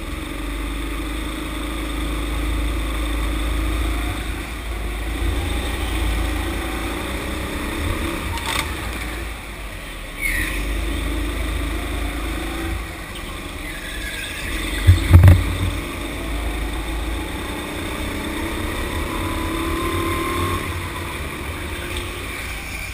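A Sodi rental go-kart being driven, heard from on board: a steady low rumble and drone that rises and falls with speed. A short burst of loud knocks comes about fifteen seconds in.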